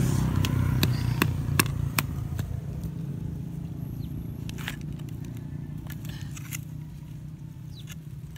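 Sharp crackling and snapping of dry plant stems and leaves as a gloved hand pulls up a weed, thick in the first couple of seconds and then thinning out. Under it, a low engine hum fades away.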